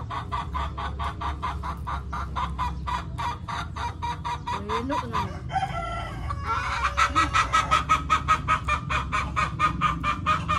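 Domestic chicken clucking in a long, even run of quick clucks, about five a second. The clucking breaks off briefly about halfway through, then starts again louder.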